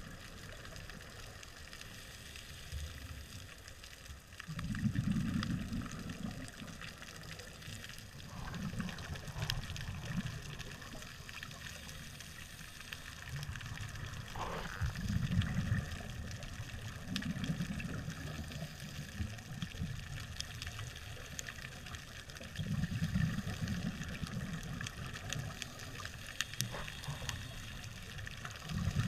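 Underwater rush of a scuba diver's exhaled bubbles from the regulator, a low gurgling surge every five seconds or so, six in all. Between breaths, a faint steady crackle of fine clicks.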